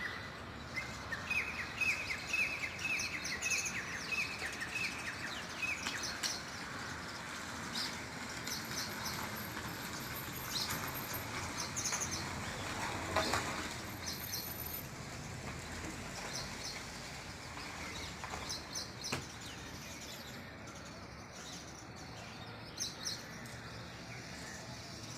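Several wild birds chirping and calling over a faint steady background hiss. A quick series of repeated chirps runs for the first few seconds, then short scattered chirps and a few very high thin notes follow.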